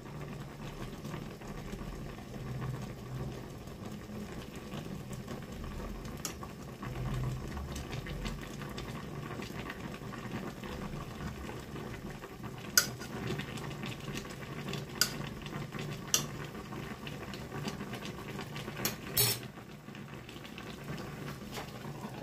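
A pot of fish stew in vinegar broth bubbling at a steady boil, with a metal spoon clinking sharply against the pot about five times as it works the broth.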